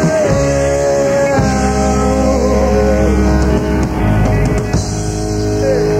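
Live rock band playing: a guitar holds long, wavering notes over bass and drums.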